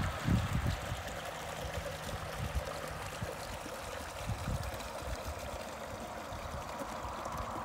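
Small stream of water running and splashing out of a roadside culvert pipe into a shallow ditch, a steady rush with a few low thumps in the first second.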